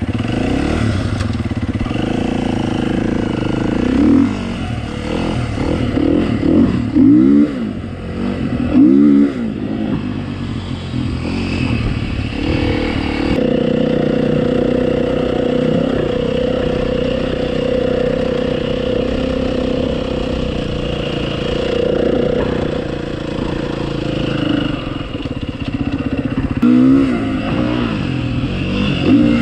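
Off-road vehicle's engine running under way on a dirt trail, its revs rising and falling repeatedly with throttle and gear changes, with several sharper revs near the start and one near the end. A steadier stretch of cruising comes in the middle, with clattering from the rough ground.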